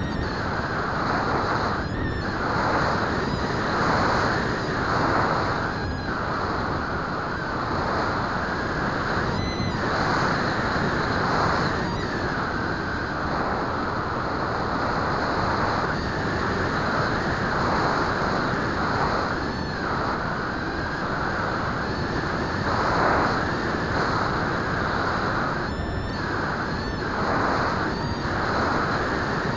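Wind rushing over the onboard camera microphone of a Bixler RC plane in flight: a dense, steady hiss that swells and eases every few seconds.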